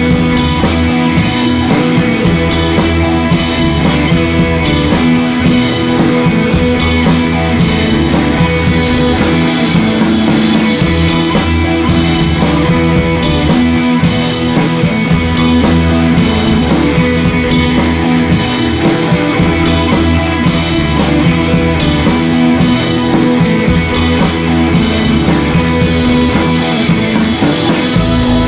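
Rock music with electric guitar and a drum kit playing steadily.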